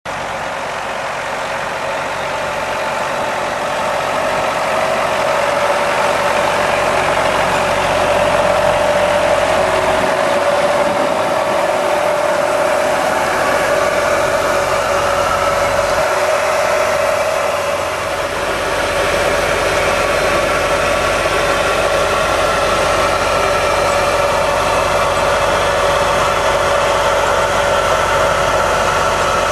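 Tractor engine running steadily as it pulls a 4.5-metre Agricola precision seed drill sowing onions, with the drill's sowing units working.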